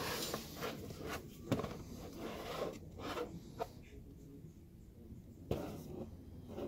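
Handling noise from a Makita cordless hammer drill being picked up off a table and turned over in the hands: irregular rubs and light knocks of its plastic housing, the sharpest about a second and a half in and again near the end.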